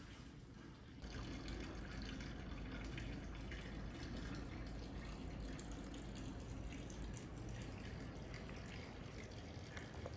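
Steady running water that starts suddenly about a second in and runs on evenly.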